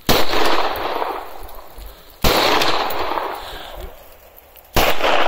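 Three shots from a 9mm Glock-pattern pistol fired with a bare threaded barrel and no flash hider, spaced about two and a half seconds apart. Each shot is a sharp crack followed by a long echo dying away over about two seconds.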